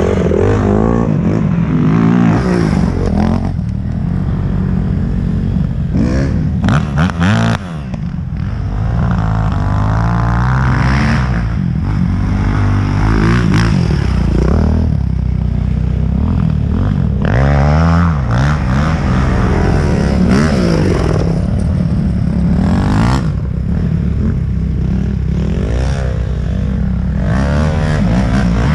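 Dirt bike engines: a steady low engine note close by, with other dirt bikes revving and accelerating past, their pitch rising and falling again and again. One bike passes very close about halfway through.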